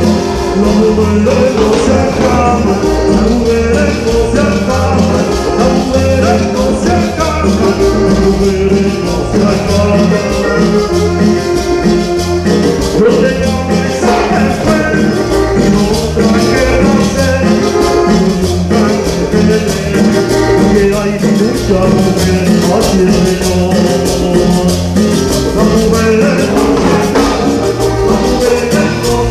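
Cumbia music played loudly by a live band, with a steady repeating bass line, busy percussion and a melody over it.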